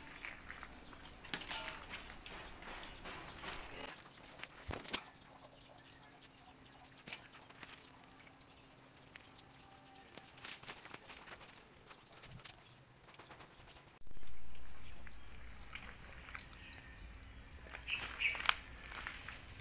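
A steady high-pitched insect buzz, with scattered clicks and light knocks from tools being handled. About 14 seconds in, a thump cuts the buzz off, and a low rumble of handling noise follows.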